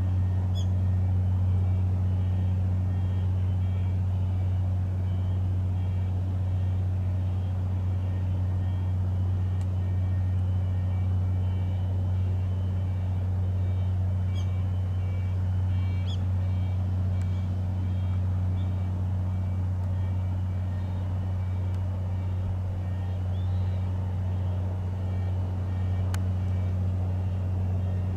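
Leonardo AW139 helicopter's twin turboshaft engines running on the ground during an engine run: a steady deep drone with a faint high-pitched whine above it.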